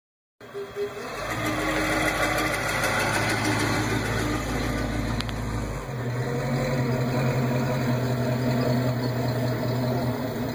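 First-generation Ford Mustang fastback's engine running at low speed through its dual exhaust as the car rolls slowly past. The engine note shifts about six seconds in.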